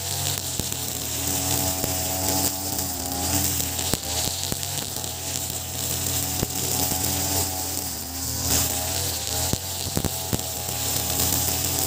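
Ogawa BG330 33cc two-stroke brush cutter running at cutting speed, its 2.4 mm square nylon line slicing through grass. The engine note sways in pitch every few seconds as the cutter swings through the grass, with scattered sharp ticks.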